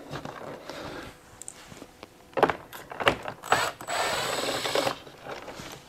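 Ryobi cordless drill spinning an 11 mm socket to back a metal nut off the plastic stud that holds a factory door tweeter. It runs steadily for about a second and a half, a little after the middle, and a few short clicks come before it.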